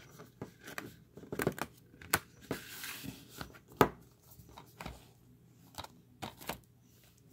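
A cardboard slipcover rubbing and sliding over a plastic Blu-ray case, with a scatter of sharp clicks and taps as the case is handled; one rustling slide sits near the middle.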